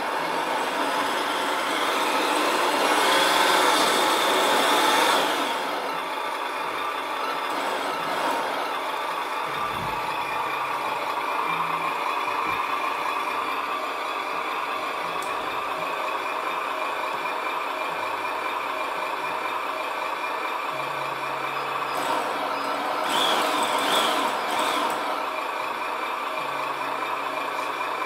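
Simulated truck engine sound from the HG P408 Humvee RC car's built-in sound unit, running steadily and swelling louder twice as the throttle is worked.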